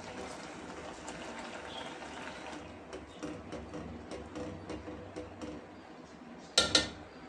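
A spoon mashing and stirring soft cooked dal in an aluminium pot, with wet squelching and light clicks of the spoon against the pot. Near the end comes a louder double knock with a brief metallic ring as the spoon strikes the pot.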